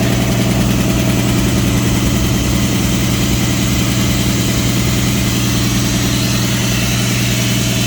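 Homebuilt air compressor's electric-motor-driven two-stage piston pumps running steadily, pumping up tanks that start from zero pressure, with a strong steady hum under a loud even clatter.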